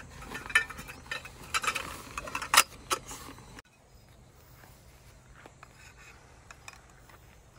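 Metal tarp pole sections clinking and rattling as they are handled and pulled from their bag, with a sharper clack about two and a half seconds in. After about three and a half seconds it drops to a low level, with only faint occasional clicks as the sections are fitted together.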